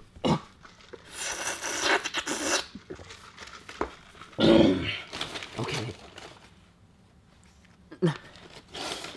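A young man's heavy breathing: long, noisy exhales and sighs, a few seconds apart, with a short vocal sound near the end.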